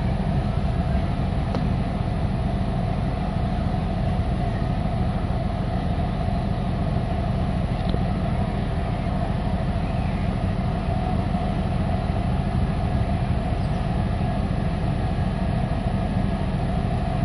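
Locomotive engine idling steadily, a continuous low mechanical hum with a few steady tones above it.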